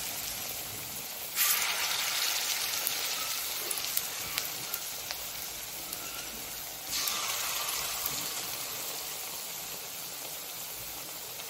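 Chira and ripe banana fritters sizzling as they deep-fry in hot oil: a steady hiss with small scattered pops. The hiss jumps louder suddenly about a second and a half in and again about seven seconds in, easing off slowly after each.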